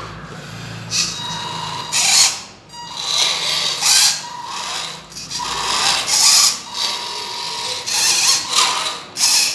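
Electric drive motor and gearbox of a scale-model RC dump truck whining, rising and falling in about five surges of a second or so as the throttle is worked.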